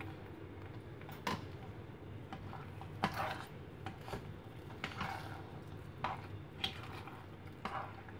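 A metal spoon and a plastic spatula clacking and scraping against a saucepan as sugar is spooned in and thick coconut-milk glutinous rice porridge is stirred: a few scattered short clacks over a low steady hum.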